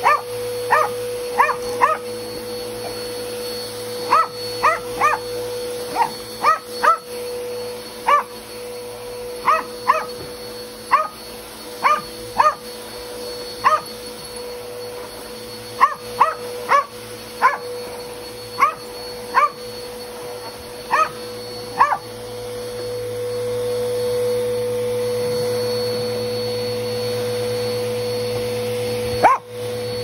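Small dog barking at a running upright vacuum cleaner: over twenty short, high yips in quick clusters of two or three, over the vacuum motor's steady hum. The barking stops about two-thirds of the way in while the vacuum keeps running.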